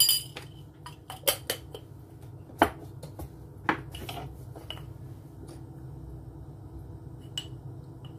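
Ceramic spoon clinking and tapping against a porcelain sauce dish and ingredient containers while sugar and cornstarch are measured out: a string of sharp clinks, mostly in the first five seconds, with one more near the end.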